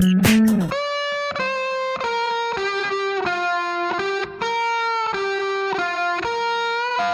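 Background music: the beat stops about a second in. A single melodic line of held notes then carries on alone, stepping to a new note every half second or so.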